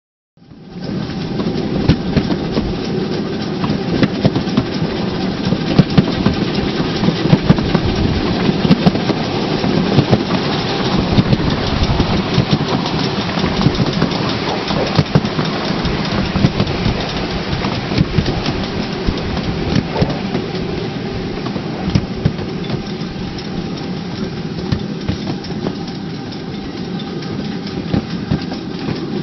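A 7¼-inch gauge miniature railway train running along the track: a steady rumble with quick clicks and clatter from the wheels on the rails.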